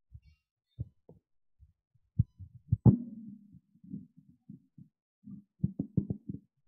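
Whiteboard duster rubbed across a whiteboard, heard as irregular dull knocks and rubbing. The loudest knock comes just before three seconds in, followed by a stretch of rubbing, and a cluster of knocks comes near the end.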